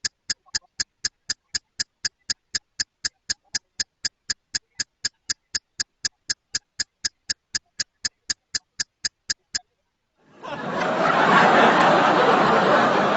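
Rapid, even ticking sound effect, about four ticks a second, which stops shortly before ten seconds in. After a brief pause, a crowd chattering and laughing comes in.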